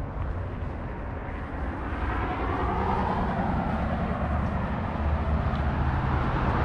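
Road traffic: a vehicle passing on the road swells and fades over a steady low rumble.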